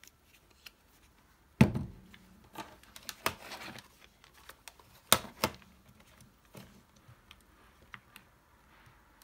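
Handling noises on a wooden workbench. About a second and a half in comes a thump as the opened impact driver housing is set down. Scattered clicks and light knocks follow as multimeter probes and parts are handled, with two sharp clicks about five seconds in.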